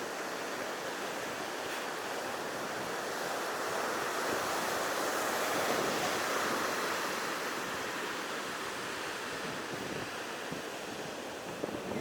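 Ocean surf washing onto a beach: a steady rush of waves that swells to its loudest midway, then eases.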